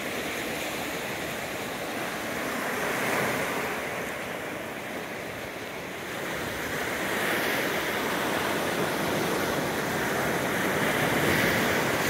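Ocean surf washing onto the beach, an even rush of breaking waves that swells louder about every four seconds.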